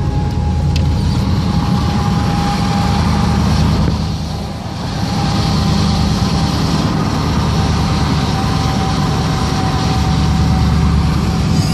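Steady low rumble of a car driving on a rain-soaked road, engine and tyre noise heard from inside the cabin, with a hiss from the wet pavement. It dips briefly about four seconds in.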